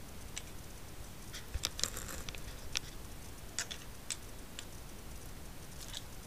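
Scattered light clicks and taps of a hard drive and its mounting bracket being handled and screwed together with a small screwdriver, most of them bunched about two seconds in.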